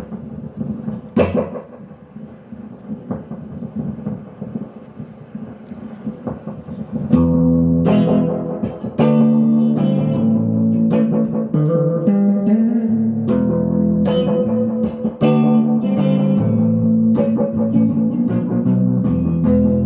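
Electric guitar played through a 1963 Fender Ecco-Fonic solid-state tape echo unit: softer picked notes at first, then louder, fuller chords from about seven seconds in.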